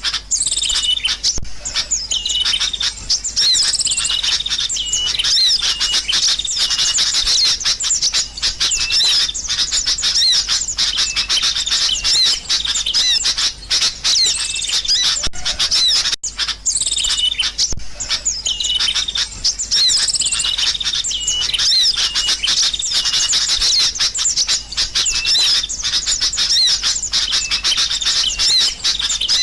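A noisy flock of sooty-headed bulbuls (kutilang) calling together: a dense, continuous chatter of rapid, high chirps and whistled notes, with a brief break about halfway through.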